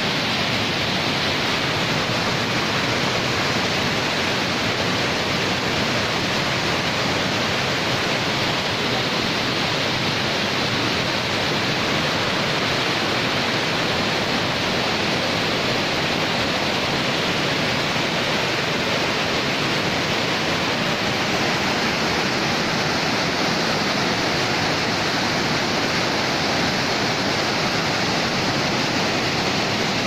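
Waterfall pouring over rock ledges into a pool close by: a steady, unbroken rush of falling water.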